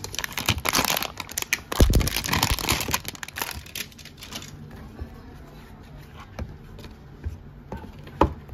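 Clear plastic shrink wrap torn and peeled off a small cardboard phone box, crinkling densely for the first four seconds or so. Then quieter handling of the bare box, with a few light taps and a sharp click near the end.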